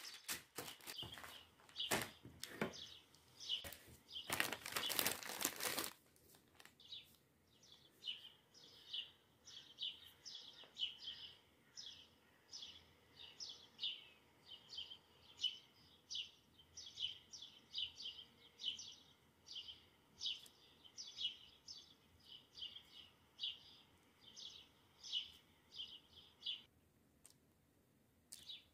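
A few short bursts of rustling or crinkling noise, then a small bird chirping over and over, about two short high chirps a second, which cuts off abruptly near the end.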